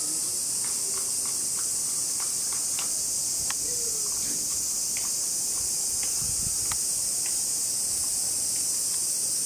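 Steady high-pitched insect drone, with faint scattered ticks and a soft low thump about six seconds in.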